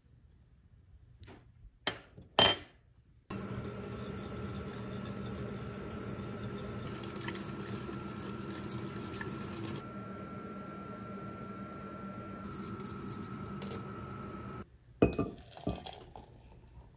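A metal whisk clinking and scraping in a stainless steel saucepan, stirring cocoa powder into water, with one sharp clink about two seconds in. From about three seconds in, a steady hum with a thin high whine from the glass-top cooktop runs under the whisking and cuts off abruptly near the end, followed by a few quick clinks and knocks.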